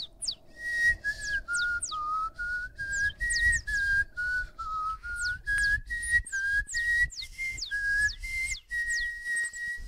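Human whistling of a stepping melody, with quick high falling chirps over it and low thumps about twice a second, all made by beatboxers' mouths. The last note is held for about a second near the end.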